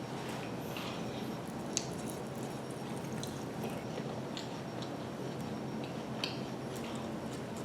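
Quiet eating sounds: a few small wet clicks and squishes, with two sharper ticks about two seconds in and again near the end, over a steady room hum.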